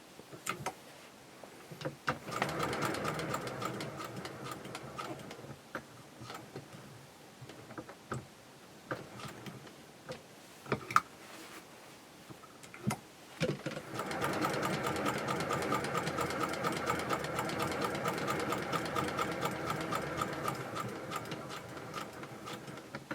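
Singer 201K sewing machine stitching. A short run of about three seconds, then a gap with scattered clicks and knocks, then a longer steady run of about eight seconds with fast, even ticking that eases off near the end.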